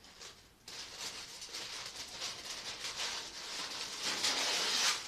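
Parchment paper rustling and crinkling as it is handled. The sound starts a moment in and grows louder toward the end.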